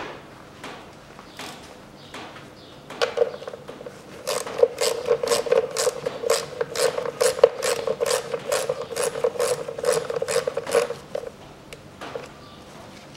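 Ratchet tool clicking in quick, even strokes of about four clicks a second, from about three seconds in until near the end, while self-tapping screws are tightened.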